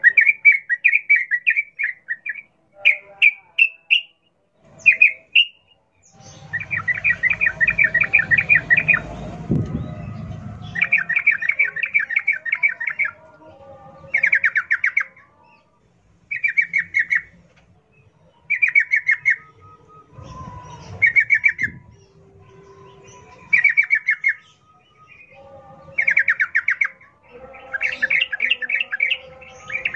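Yellow-vented bulbul singing in rapid, chattering phrases: about ten bursts of quick repeated notes, each one to three seconds long, separated by short pauses.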